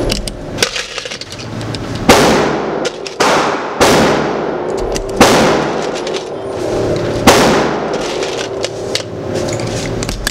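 Gunshots in an indoor shooting range: five loud single shots at uneven spacing, one to two seconds apart, each followed by a long echoing tail, with lighter clicks and knocks in between.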